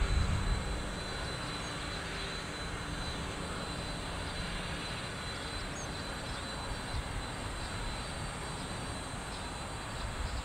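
Twin-engine jet airliner taking off at full thrust: a loud low rumble with a hum in the first second, then a steady rumble as it climbs away.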